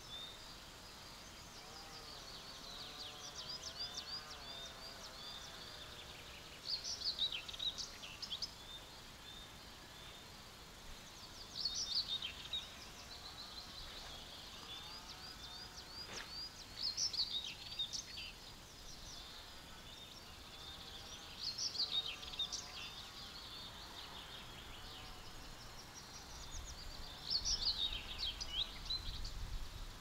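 Wild birds singing in a meadow: one bird repeats a short, loud, high song phrase about every five seconds over steady quieter chirping and twittering from other birds. A faint low rumble comes in near the end.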